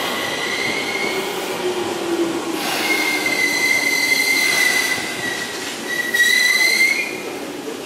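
Electric commuter train rolling slowly along the platform as it brakes to a stop, over a steady rumble. A high squeal from the wheels and brakes comes and goes three times, and a lower hum falls in pitch about two seconds in.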